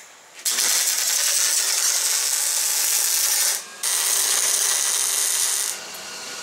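Arc welding thick steel riser plates onto a frame's engine mounts: a steady hiss in two long runs with a short break about three and a half seconds in, dropping to a quieter hiss near the end.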